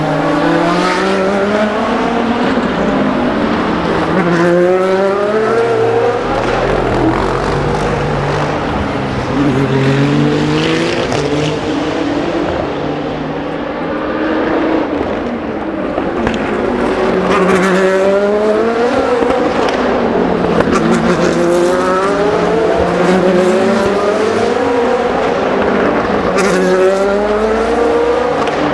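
Race car engines accelerating hard and shifting up through the gears. The engine note climbs, drops back at each upshift and climbs again, over and over, as several cars go past in turn.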